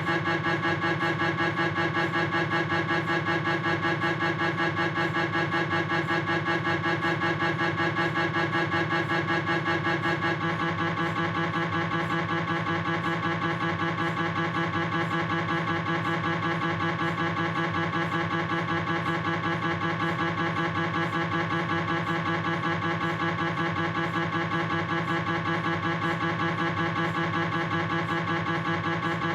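Gradient coils of a Philips 1.5 T MRI scanner buzzing in a fast, steady, pitched pulse during a proton-density fat-suppressed coronal knee sequence. The pattern shifts and gets slightly quieter about ten seconds in.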